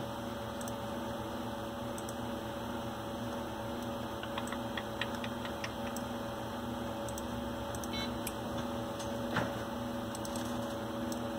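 Steady background hum and noise with a few light computer mouse clicks, scattered from about four seconds in, and a slightly louder click near the end.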